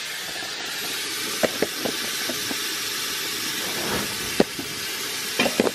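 Kitchen tap running, a steady hiss of water, with a few light knocks as the camera is handled and set in place.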